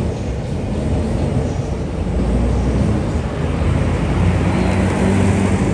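Low rumble of a passing motor vehicle, swelling about two seconds in and growing louder toward the end.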